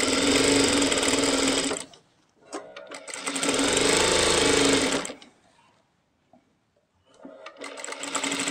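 Industrial single-needle sewing machine stitching fabric in three short runs. Each run is a steady fast whirr, and it stops briefly between them; a few light clicks come in the first pause, and the last run picks up speed near the end.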